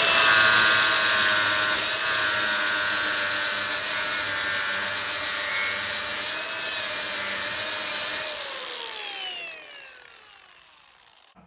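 Power grinder grinding an old rivet head down flush with a saw tooth: it runs steadily for about eight seconds, then is switched off and winds down, its whine falling in pitch as it fades.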